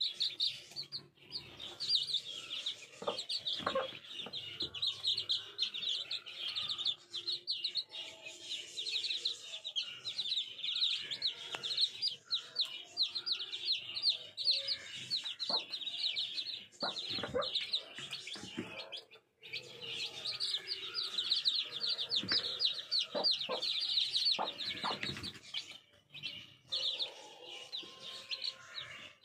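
A brood of young chicks, naked-neck chicks among them, peeping rapidly and almost without pause in high cheeps, with the mother hen's low clucking underneath and a few short knocks.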